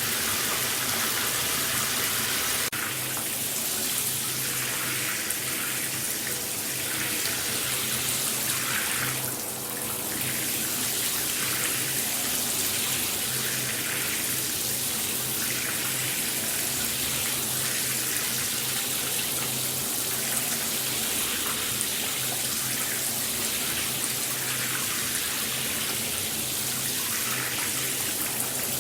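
Shower running steadily: a dense, even hiss of falling water with a faint low hum underneath, dipping briefly about nine seconds in.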